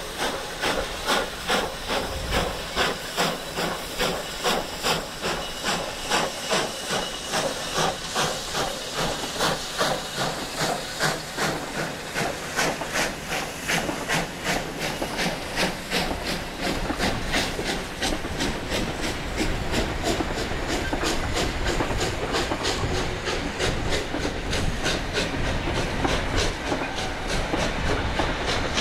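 Steam locomotive working a passenger train, its exhaust chuffing in even beats with steam hissing; the beats quicken as it accelerates. After about 18 seconds the engine has passed and the steady rumble and clickety-clack of the wooden carriages rolling over the timber trestle takes over.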